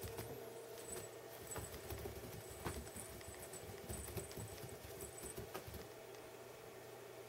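Soft, irregular thumps and scuffs of a cat's paws on carpet as it pounces and darts after a laser dot.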